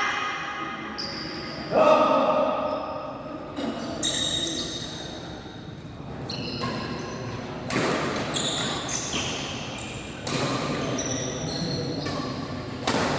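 Badminton play in an echoing sports hall: sharp racket strikes on the shuttlecock and shoe squeaks on the court, with players' voices now and then.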